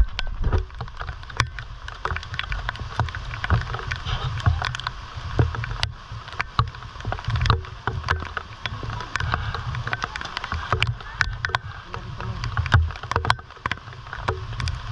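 River water splashing and rushing, with irregular sharp splashes and knocks over a steady water rush, and uneven low rumbling.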